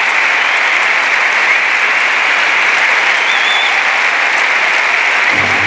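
Audience applauding steadily, dense even clapping from a large crowd.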